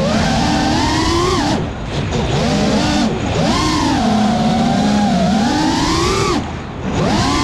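FPV racing quadcopter's brushless motors whining, the pitch rising and falling with the throttle. Twice, about one and a half seconds in and near the end, the sound briefly drops away as the throttle is cut.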